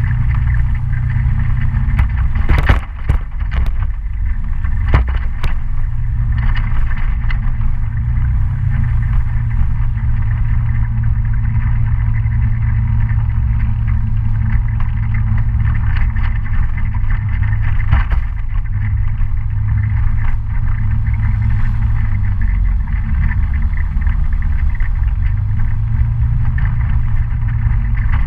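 Kymco Citycom S 300i scooter riding on a dirt road: its engine and the road make a steady low rumble. Sharp knocks and rattles come through several times a few seconds in and once more about midway, as the scooter hits bumps.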